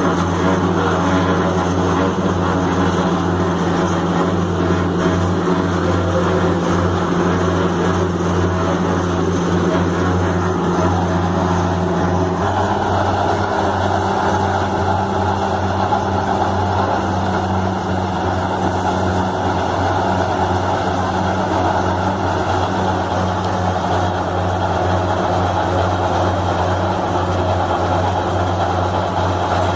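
Heavy construction machinery running steadily with a loud, low mechanical drone. The sound shifts abruptly about twelve seconds in, to a similar drone.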